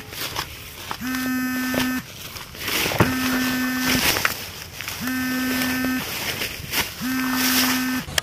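An electronic buzzing tone at a steady pitch, sounding four times, about a second each with a second's gap between: a pulsing suspense sound effect.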